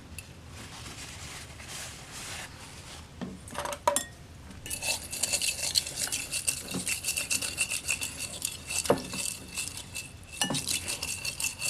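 A couple of knocks, then from about five seconds in a utensil stirring briskly in a bowl: rapid clinking and scraping against its sides, with a faint ring.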